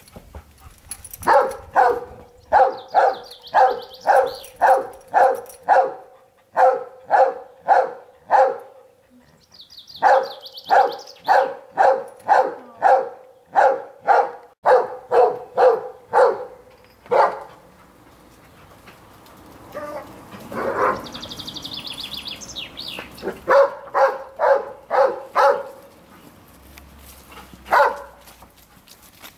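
A dog barking over and over, about two barks a second, in runs broken by short pauses, then a longer gap before a few more barks. Birds chirp briefly now and then.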